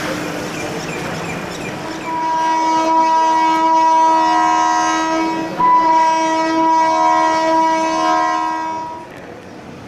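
Air horn of an electric freight locomotive, several notes together, sounding one long blast of about seven seconds with a short break midway. Underneath is the rumble and wheel clatter of a passing train of covered goods wagons.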